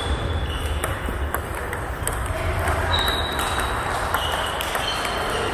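Table tennis balls clicking on paddles and tables, a scattered run of sharp knocks from several tables being played at once.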